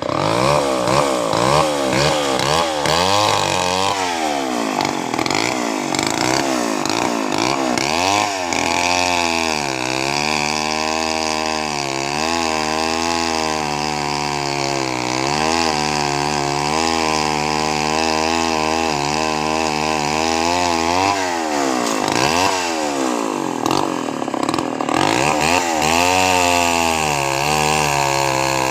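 Two-stroke chainsaw running at high speed, cutting through a tree trunk. A few seconds in, and again about three-quarters through, the engine pitch sags and swings back up.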